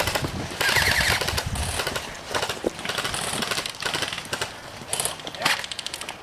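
Airsoft guns firing in rapid bursts of sharp clicks, several bursts one after another.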